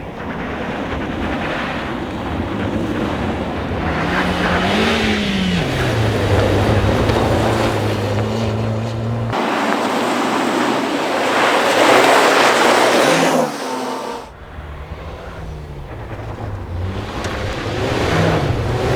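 Rally car on a snow stage, its engine revving up and falling back through gear changes over a loud rush of tyre noise. The rush is loudest about ten to thirteen seconds in, then eases briefly.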